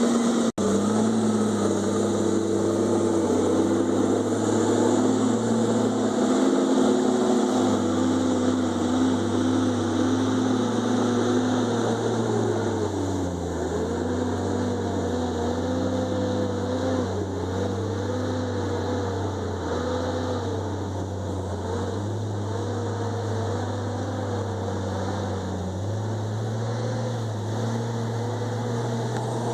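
Komatsu D51EX bulldozer's diesel engine running under load, its pitch shifting up and down as the engine speed changes.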